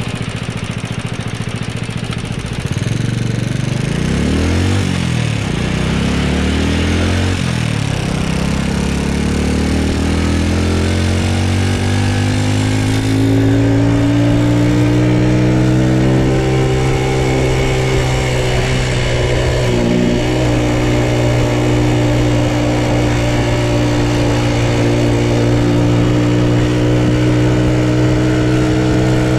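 Honda Super Cub's single-cylinder four-stroke engine running on the move. Its pitch rises and falls through gear changes early on, then climbs and holds steady, with a brief dip about two-thirds of the way through. The owner says the engine is making an abnormal noise.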